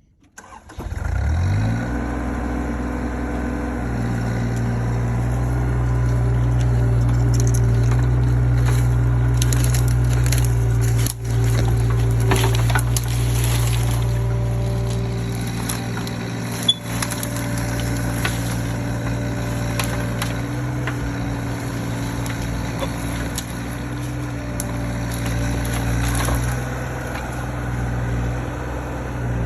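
Mini excavator's engine starting up, spinning up in pitch within the first couple of seconds and then running steadily, a little higher from about four seconds in. A few sharp clicks and knocks sound over it.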